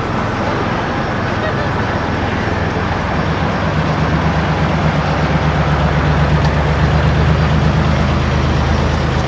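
A vehicle engine running with a low, steady rumble that grows louder from about three and a half seconds in, over city traffic noise.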